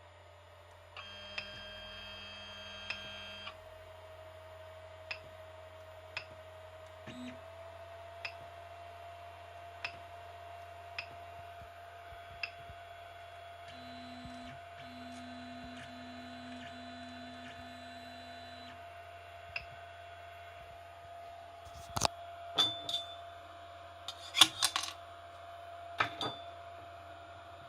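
A desktop 3D printer hums steadily with faint regular ticks, and its stepper motors whine briefly twice as they move after the print has finished. About 22 seconds in come a series of loud sharp clicks and snaps as the printed plastic part is pried off the Pertinax print bed.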